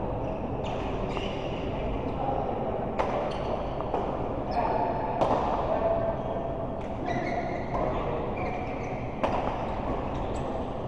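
Doubles rally on an indoor court: sharp, irregular hits every second or two, echoing in a large hall over a steady background murmur.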